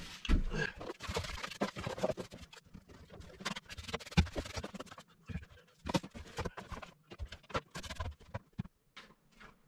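Broom sweeping the floor: bristles scratching and scraping in irregular strokes, with scattered knocks and clunks as the broom hits the floor and fittings.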